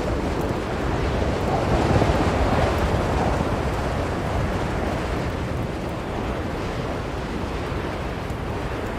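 Blizzard wind blowing in a continuous rush, swelling in a gust about two seconds in and then easing.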